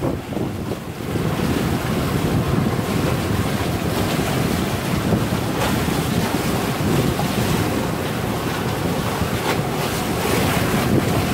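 Wind buffeting the microphone over the steady rush and splash of water against the hull and outrigger floats of a moving boat in choppy water.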